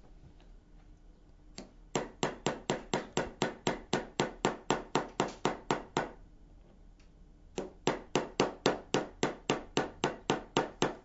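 Small hammer tapping a metal punch to drive a cam-lock's steel hinge pin through its thumb bar: light, even taps at about four or five a second. They come in two runs, starting about two seconds in, with a pause of about a second and a half between them.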